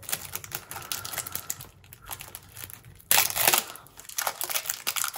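Cellophane wrap being torn off a sealed deck of playing cards: light crinkling, then a loud rip about three seconds in, followed by more crinkling.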